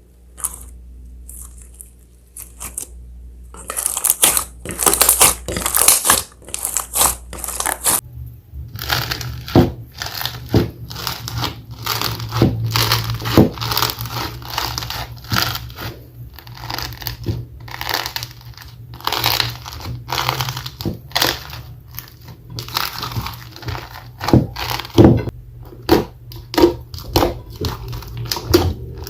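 Slime being mixed and squished, giving quick, irregular crackling and popping sounds, with a shift in the sound about eight seconds in as one clip gives way to the next.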